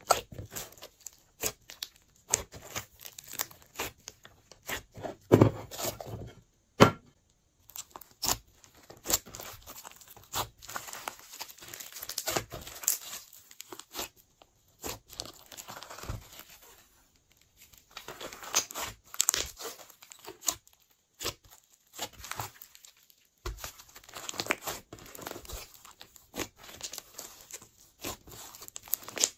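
Hands kneading and stretching glossy slime, giving sticky crackling and popping as irregular sharp clicks in clusters, with a few short pauses.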